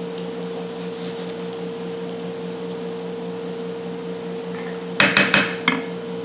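Diced chicken and onion cooking in an oiled electric skillet while stirred with a wooden spoon, over a steady low hum. About five seconds in, a quick run of four or five sharp clacks.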